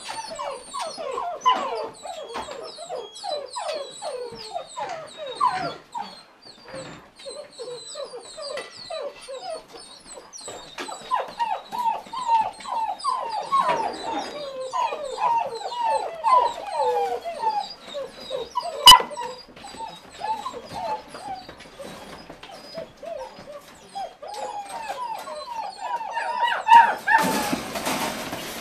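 A litter of Irish wolfhound puppies whining and yipping together as they wait to be fed, a constant chorus of short, overlapping, falling whines. A single sharp click sounds about two-thirds of the way in, and a rush of noise sets in near the end.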